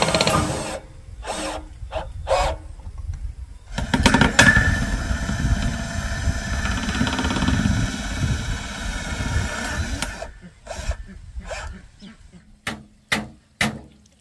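Cordless DeWalt drill driving hex-head screws through corrugated metal roofing sheet into the frame: a short run of the motor, a few clicks, then a longer run of about six seconds. A series of sharp knocks follows near the end.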